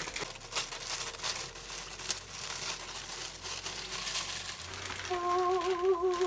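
Plastic poly mailer bag crinkling and rustling in many quick sharp crackles as it is opened and a plastic-bagged hoodie is pulled out. Near the end a held, wavering voice-like note sounds over the crinkling.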